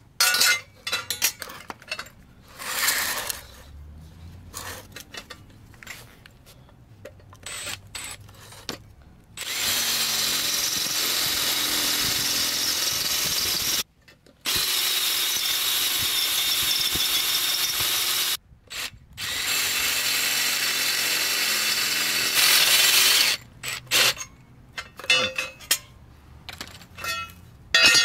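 Power drill with a 3/8-inch bit boring out 1/8-inch pilot holes in a steel bracket. Clicks and clinks of metal parts being handled come first, then the drill runs steadily for about thirteen seconds with two brief stops, and more metal clanks follow near the end.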